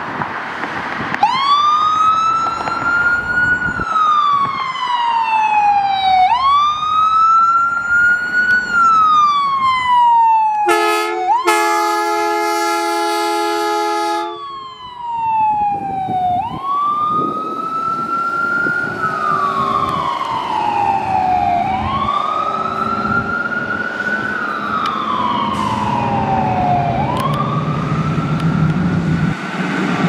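Emergency-vehicle sirens wailing, each cycle a quick rise and a slow fall of about five seconds. About ten seconds in, a fire-apparatus air horn blasts for about three and a half seconds, with a brief break near its start. In the second half a second siren overlaps the first, and near the end a heavy diesel engine's low rumble grows as a fire engine pulls out.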